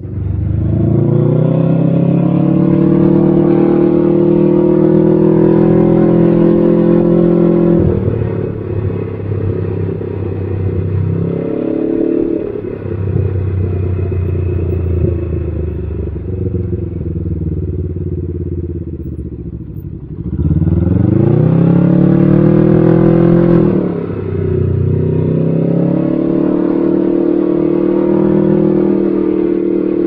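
Can-Am Ryker 600's two-cylinder engine running through an RLS Carbon Series exhaust, heard from the rider's seat while riding. It pulls up through the revs, holds a steady cruise, backs off, then accelerates hard again about two-thirds of the way through before the throttle is closed and it settles back to a steady run.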